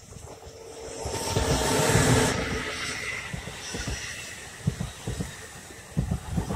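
New Jersey Transit train of double-deck coaches passing close by at speed: a rushing noise swells as the locomotive goes by about two seconds in, then a steady rumble with repeated clacking of wheels over the rails as the coaches pass.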